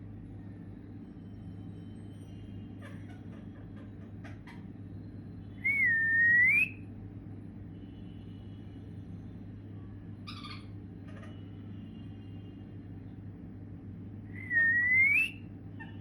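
Pet parrot whistling twice, each a clear whistle about a second long that dips a little, then rises in pitch. Faint soft clicks and chirps come between the whistles, over a steady low hum.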